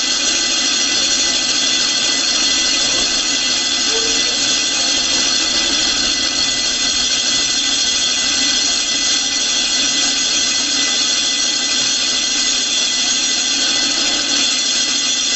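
Gural slicer's spinning circular blade grinding against its sharpening stone: a steady, high-pitched squeal with the motor running beneath, throwing sparks as the edge is sharpened.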